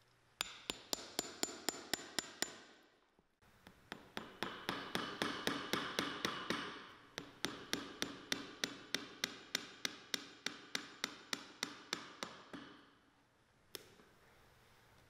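Cobbler's hammer tapping the leather sole of a cowboy boot held upside down on a last, driving small wooden pegs into the sole. It comes in three quick runs of sharp, slightly ringing taps, about four or five a second, with one last tap near the end.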